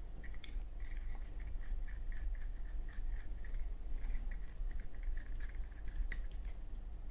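Fuel-soaked cotton swab scrubbing inside a Zippo lighter's metal chimney to clear soot and flint dust: a quick, continuous series of scratchy rubbing strokes with light clicks of the swab against the metal, over a low steady hum.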